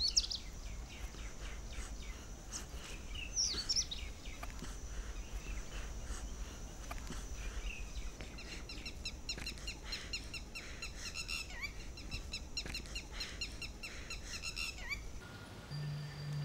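Many small birds chirping and calling over a low steady rumble, the chirps thickest in the second half. Near the end the bird sounds stop and soft sustained music tones begin.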